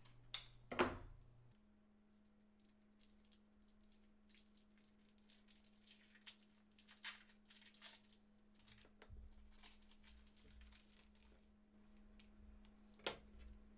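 Faint, scattered crinkles and ticks of a snack-bar wrapper being cut open with scissors and handled, with light taps of a knife on a wooden cutting board. A sharper crackle comes about a second in and another near the end.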